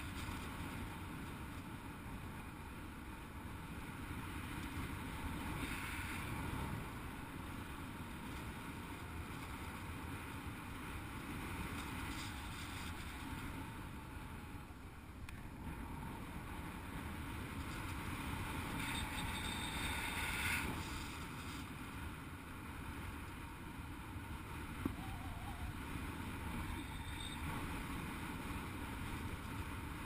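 Steady rush of air buffeting the camera microphone as the paraglider flies, swelling louder about six seconds in and again around twenty seconds in.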